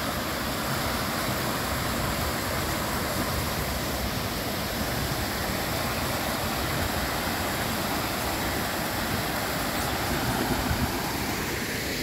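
Water from an artificial cascade pouring down a stone wall into a shallow decorative pool, making a steady rushing splash.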